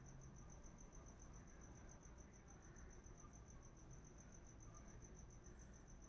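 Faint cricket chirping: a high, steady trill pulsing evenly several times a second, over a low background hiss.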